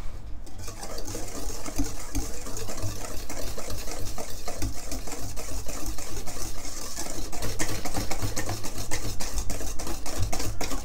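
Wire balloon whisk beating brownie batter in a stainless steel bowl: fast, even clinking and scraping of the wires against the bowl, starting about half a second in.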